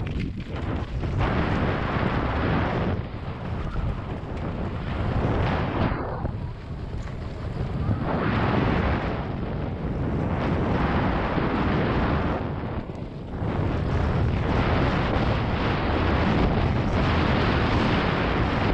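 Wind rushing over the microphone of a helmet-mounted action camera and mountain-bike tyres rumbling over gravel and rock at speed on a downhill trail. It eases briefly three times, then stays steady near the end.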